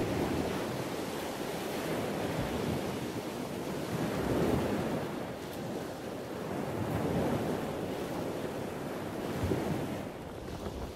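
Steady rushing of wind and water, swelling and easing every few seconds.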